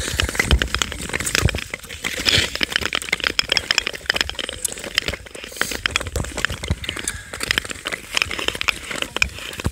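Ice skates gliding and scraping over clear black ice, with many sharp clicks and ticks throughout.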